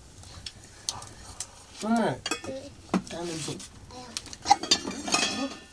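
Metal cooking utensils clinking and scraping against pots, with several sharp clinks, while voices talk over them.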